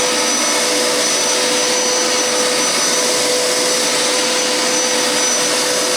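Hoover Powerscrub Deluxe carpet cleaner running steadily in wash mode: an even rushing of its suction motor with a steady mid-pitched hum and a faint high whine over it.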